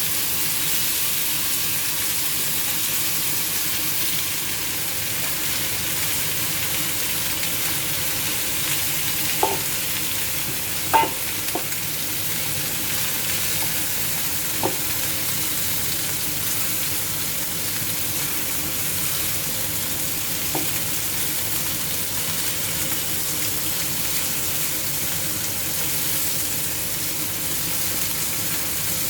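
Marinated chicken sizzling steadily as it fries in hot oil, with a few short sharp clicks, the loudest about eleven seconds in.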